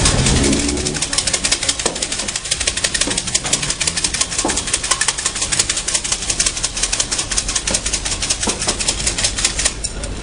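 Siam si fortune sticks rattling in their cup as it is shaken, a fast, steady clatter that stops abruptly near the end.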